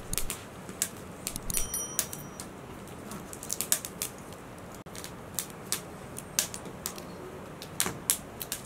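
Wood fire of dry twigs and branches crackling in a small metal stove, giving irregular sharp pops and snaps.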